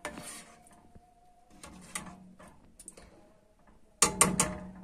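A ladle stirring soup in a stainless steel pot: a soft scrape at the start, a faint click about two seconds in, then a quick run of loud clinks of the ladle against the pot near the end.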